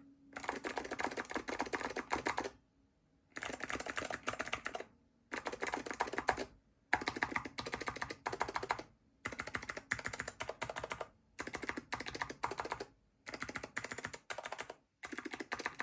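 Typing on clicky blue Alps switches fitted with thick cast-polyurethane Keymacs keycaps, in about eight quick runs of keystrokes with short pauses between them. The sound is bassier and fuller than with standard ABS keycaps.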